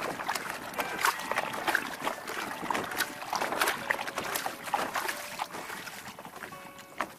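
Small waves lapping and slapping against a plastic sit-on-top kayak's hull, with irregular splashes and drips that ease off near the end.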